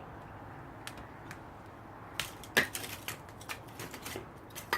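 Split wood and kindling being stacked into a wood-fired oven's steel firebox: a few light clicks, then a string of sharp wooden knocks and clatters from about halfway in.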